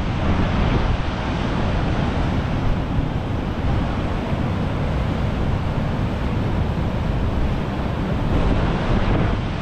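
Steady wind buffeting the microphone over surf breaking against a rocky shore.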